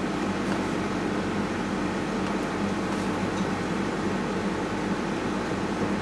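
Steady background hum and hiss: room tone, with no distinct events.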